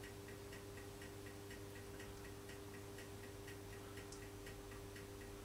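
Faint, steady mains hum with a light, fast, regular ticking, about five ticks a second.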